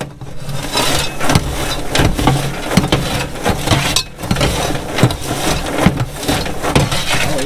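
Two metal popcorn scoops tossing and stirring a heap of freshly popped, seasoned popcorn on the metal floor of a popcorn machine cabinet. It is a continuous crunchy rustle with frequent scrapes and clicks of the scoops on the metal, easing briefly about four seconds in. A low steady hum runs underneath.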